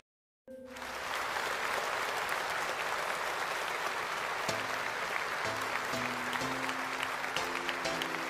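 A handheld hair dryer blowing steadily against a client's hair, with background music over it. The dryer comes in after a brief moment of silence, and the music's notes grow clearer about halfway through.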